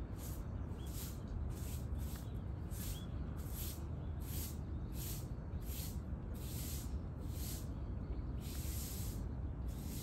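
Repeated soft hissing swishes, about one to two a second, over a steady low rumble, with a couple of faint high chirps about one and three seconds in.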